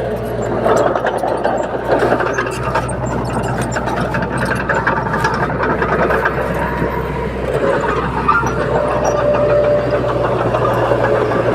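Komatsu D21P crawler bulldozer's diesel engine running steadily, with many short metallic clicks and clanks throughout.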